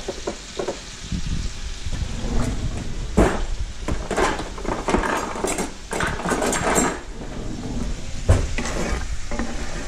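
Kitchen clatter: a run of knocks and clanks of cookware and cabinets, thickest in the middle, over butter sizzling in a cast iron skillet and a stainless steel pan.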